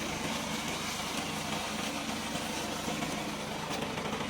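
Remote-controlled robot lawn mower's engine running steadily.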